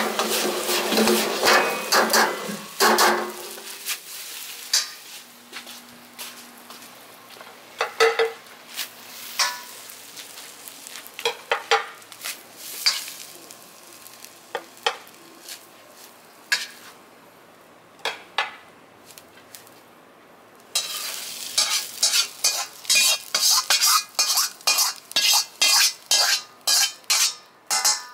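Fried rice sizzling in a wok while a metal ladle stirs and tosses it for the first few seconds. Then scattered clinks and scrapes of the ladle against the wok, and later a fast run of ladle taps and scrapes on the wok over a steady hiss as the rice is scooped out onto a platter.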